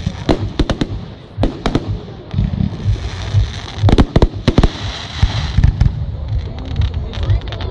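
Aerial firework shells bursting overhead in quick succession: a dense run of sharp bangs and deeper thuds, loudest about four seconds in.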